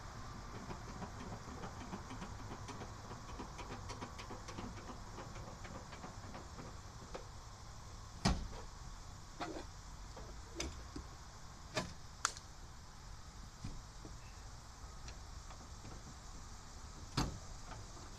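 A scattered series of sharp knocks and clicks in the second half, the loudest about eight seconds in, from someone handling the tailgate and rear window of a 1976 Chevy Blazer.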